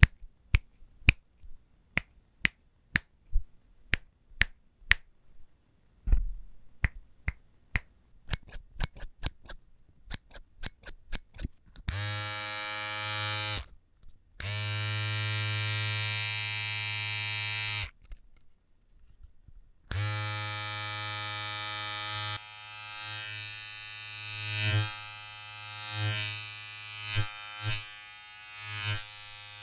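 A run of sharp clicks, sparse at first and coming faster after about six seconds. Then a small electric motor buzzes steadily for several seconds with a brief stop, and buzzes again with its level rising and falling.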